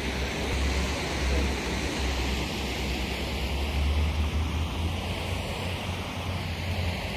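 Wind buffeting the microphone: a steady rushing hiss over an uneven low rumble.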